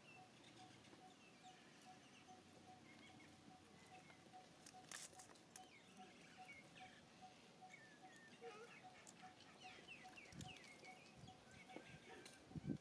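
Faint, high-pitched animal chirps and squeaks, short calls sliding downward, scattered and coming more often near the end, with a sharp click about five seconds in.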